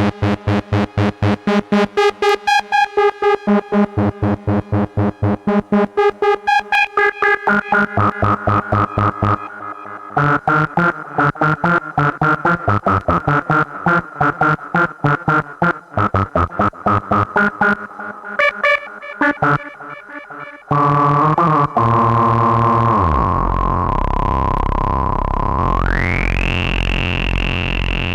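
PAiA Fatman analog synthesizer, with added effects, playing fast repeated sequenced notes that break off twice. Near the end it holds one sustained tone: its lower notes glide down in pitch, then a high tone sweeps up.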